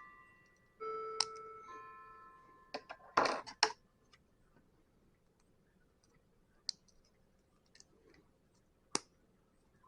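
Plastic Lego bricks clicking and rattling as they are handled and snapped together: a quick cluster of clicks about three seconds in, then a few single clicks spaced out. Early on, a few ringing musical tones fade out.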